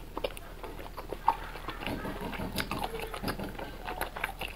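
Close-up eating sounds of a mouth working a long, thick, chewy strip coated in chili oil: wet chewing and sucking with many small smacks and clicks.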